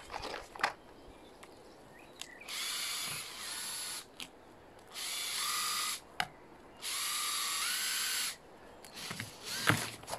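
Cordless drill driving screws through a foam expansion strip into the wall: three short runs of the motor, each about a second long, with clicks and knocks of handling near the start and the end.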